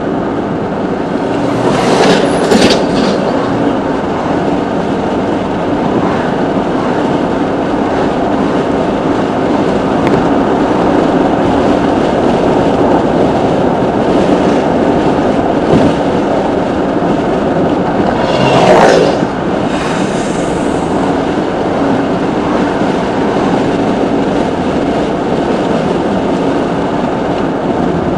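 Steady road and engine noise inside a moving vehicle's cab, with two brief louder swells, one about two seconds in and one near the twentieth second.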